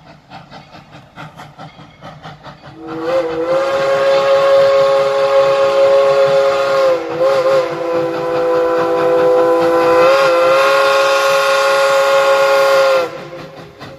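Steam locomotive chuffing, then its steam whistle blowing one long blast of about ten seconds, several tones sounding together, wavering twice as the whistle is worked. The chuffing carries on when the whistle stops.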